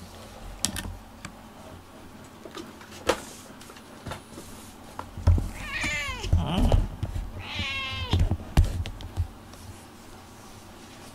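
Domestic cat meowing twice, about two seconds apart, each call falling in pitch. Scattered taps and soft low thumps around the calls.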